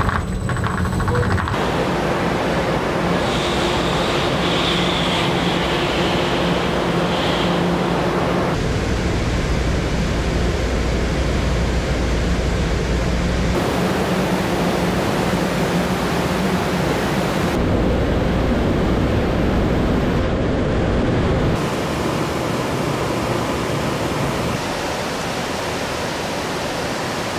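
Dense water spray hissing and drumming on an SUV's body in a water-leak test booth, changing sharply in tone at each cut, with the last few seconds heard from inside the cabin. It opens with about a second and a half of a vehicle's wheels running on test rollers.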